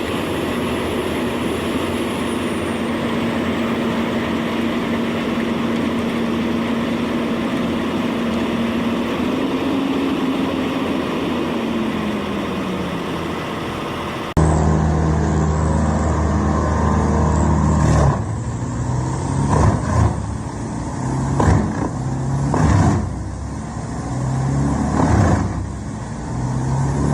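A large wood chipper's engine running steadily, its note sagging about two thirds of the way through the first part. After a sudden change about halfway, a heavy engine labours, its pitch shifting up and down, with a series of sharp cracks as wood is chipped.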